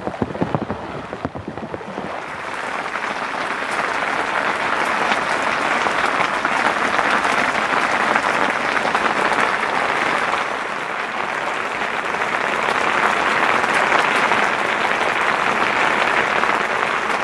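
Rain falling on tent fabric, a dense and steady patter that comes up about two seconds in.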